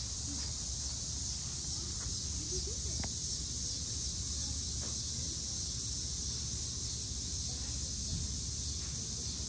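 Steady high-pitched chorus of insects over a low rumble, with a few faint scratches as a puppy paws and noses into sand.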